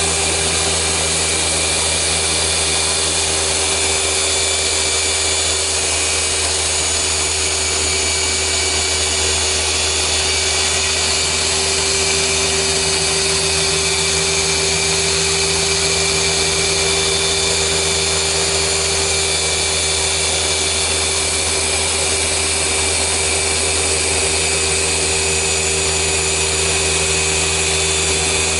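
Rupes LHR 15 random-orbital (dual-action) polisher running steadily with its foam pad working polish over car paint: an even, constant-pitch motor whir and hum.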